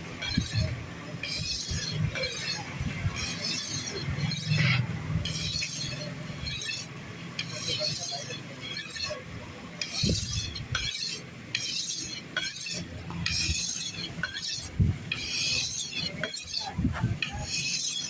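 A knife blade being sharpened by hand, rasping in repeated scraping strokes at about one a second.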